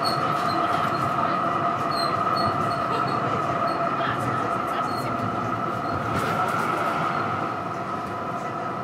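A Melbourne tram heard from on board while running, a steady rumble of wheels on rail under a constant whine. It eases off slightly near the end.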